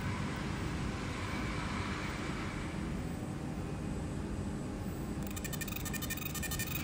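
Fiber laser marking machine humming steadily. About five seconds in, the crackling buzz of the pulsed 20 W 1064 nm laser ablating the bismuth telluride piece starts up.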